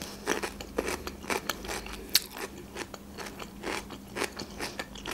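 A person chewing a crunchy pickled gherkin with the mouth close by: a string of irregular wet crunches, a few a second.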